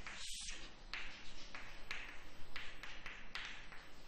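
Chalk writing on a chalkboard: about ten short, scratchy strokes in quick succession as letters are written and a line is ruled.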